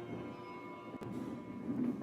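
Quiet background music with steady held tones, and a single click about halfway through.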